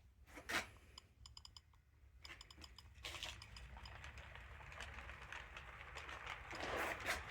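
HO scale model train moving on the layout's track: light clicks and ticking, then a steady whir that grows louder near the end.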